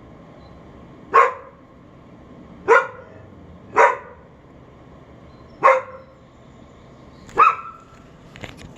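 A dog barking, five single sharp barks spaced one to two seconds apart.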